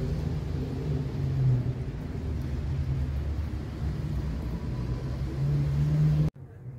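Domestic cat purring right at the microphone: a steady low rumble that cuts off suddenly near the end.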